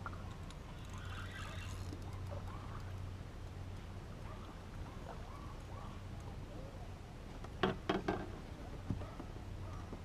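A few sharp knocks on a fishing boat's deck and hull as a hooked fish is brought aboard: two close together about three-quarters of the way through, then one more. Under them, a steady low hum.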